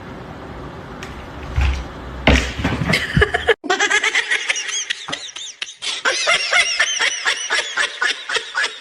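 High-pitched laughter in a fast string of short rising-and-falling bursts, several a second, through the second half; before it, a stretch of room noise with a few knocks.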